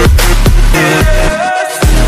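Electronic background music with heavy bass and drum hits; the bass drops out briefly about a second and a half in.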